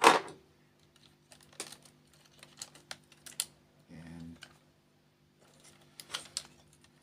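Hard plastic clicks, taps and rattles from handling a laser printer fuser assembly and its plastic clips and wire connectors. A few scattered knocks, the loudest right at the start and a small cluster near the end.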